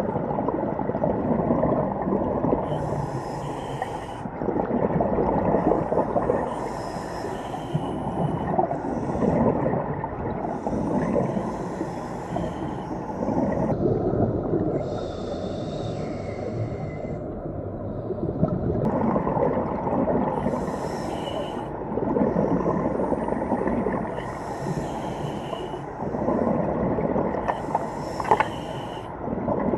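Scuba diver breathing through a regulator underwater: hissing inhalations every few seconds alternating with rumbling, bubbling exhalations, a moaning underwater noise.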